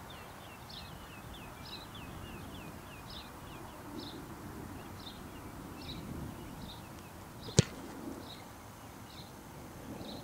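A single sharp impact about seven and a half seconds in: a kicker's foot striking a football off the tee on a 30-yard field goal attempt. A bird sings a repeated series of short chirps throughout, over steady outdoor background noise.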